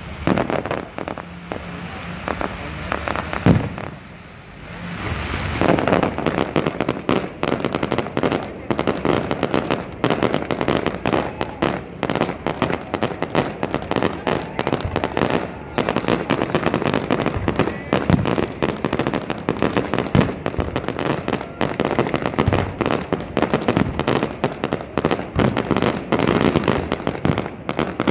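Fireworks display: aerial shells bursting in a rapid string of bangs. After a short lull about four seconds in, the bangs come thick and fast without a break.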